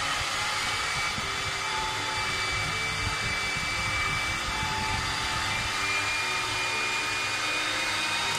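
Electric mixer running at a steady speed, beating cake batter: a continuous motor whine.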